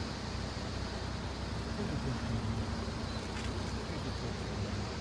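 Steady low rumble of a stopped open tourist rail cart idling, with wind noise and a faint murmur of voices in the background.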